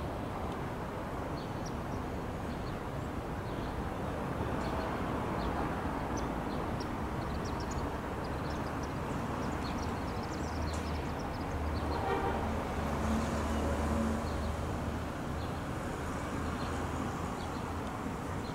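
Outdoor city ambience: a steady rumble of distant traffic with scattered short high chirps, and a low hum that swells for a few seconds past the middle.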